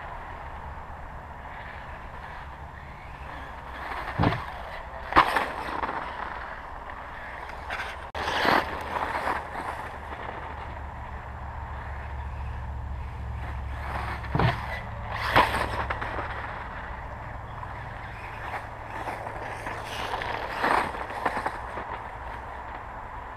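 Radio-controlled dirt bike running around a dirt track, with several sudden loud bursts of motor and tyre noise as it passes and takes the jumps, often in pairs about a second apart, over a steady low rumble.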